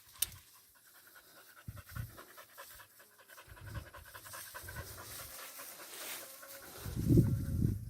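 An animal panting close to the microphone in uneven bursts of heavy breath, loudest near the end.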